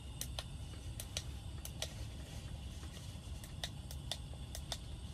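A dozen or so sharp, irregular light clicks and ticks over a steady low rumble.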